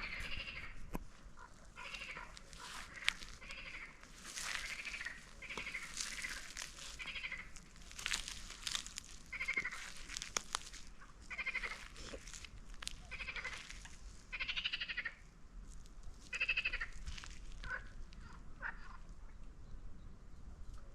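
Goats bleating, a series of faint, quavering calls about one to two seconds apart, thinning out near the end.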